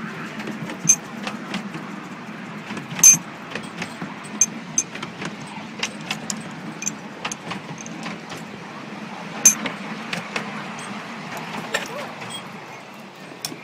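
Miniature railway carriage running along the track: a steady low rumble with irregular metallic clicks and clanks from the wheels and coupling, and a few sharper knocks about one, three and nine and a half seconds in.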